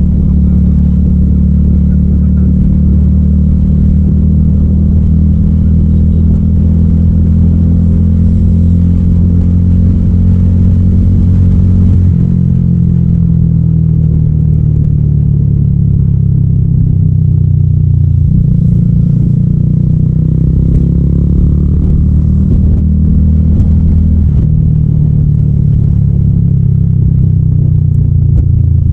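A 300SR motorcycle with an Akrapovic M1 aftermarket exhaust running under way. The exhaust note is loud and steady, and its pitch changes in steps a few times, about twelve, eighteen and twenty-four seconds in.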